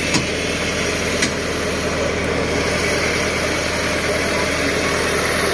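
Tractor diesel engine running steadily at idle, with two light clicks in the first second and a half.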